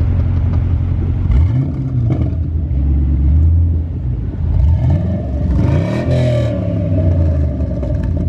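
Car engine revved through its exhaust, a steady low rumble that climbs in pitch about a second and a half in and again around five to six seconds in.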